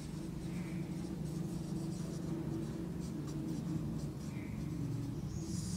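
Marker pen writing on a whiteboard: quiet strokes.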